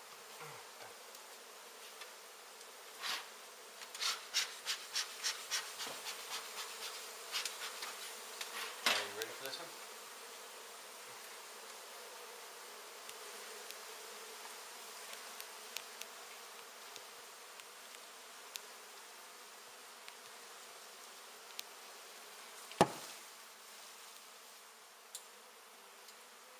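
A honey bee colony buzzing steadily as its hive is being cut out. Over it, a quick run of sharp knocks in the first third, scattered light clicks, and one sharp knock near the end.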